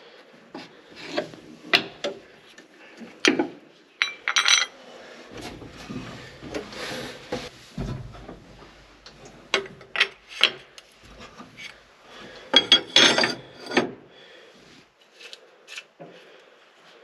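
Hand wrenches and metal parts clinking, knocking and scraping on a Case 1070 tractor's power shift transmission as bolts and pieces are worked loose. The clinks come at irregular moments, with a dense run of them about thirteen seconds in and a low rumble of parts being shifted a little earlier.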